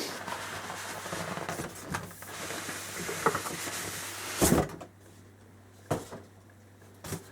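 Cardboard box and packaging being opened and handled: rustling and scraping, then a thump about four and a half seconds in and a single knock near six seconds.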